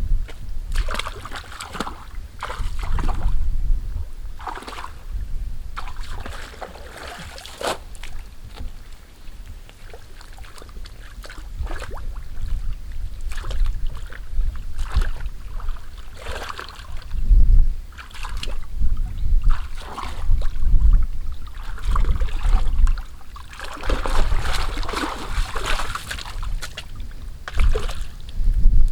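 Water splashing and sloshing in irregular bursts, with wind buffeting the microphone.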